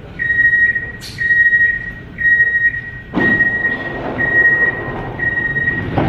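Door-closing warning signal of a Škoda Varsovia metro train: a high beep repeating about once a second. Partway through a rush of noise starts, and near the end the doors shut with a thud.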